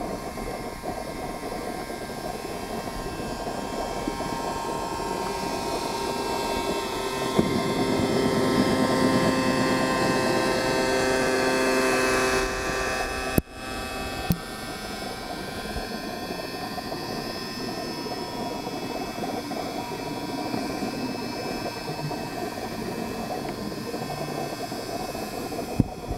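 Electric motor and propeller of a 1/72-scale Kilo-class RC model submarine running, heard underwater as a steady whine of several tones over a hiss. It swells louder for a few seconds midway, then cuts off abruptly and resumes at a steady level.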